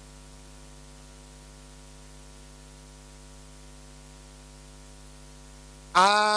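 Steady electrical mains hum from the church's sound system, a low hum with a faint buzz over it. About six seconds in, a man's voice comes in loudly over the loudspeakers: a call held on one pitch, the drawn-out start of a drill command.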